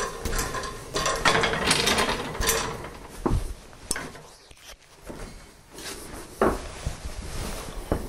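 Hand-turned roller printing press running its bed through the rollers with a mechanical rattling and clicking, then a quieter stretch. About six and a half seconds in there is a knock, followed by stiff cardboard being handled as it is lifted off the woodblock.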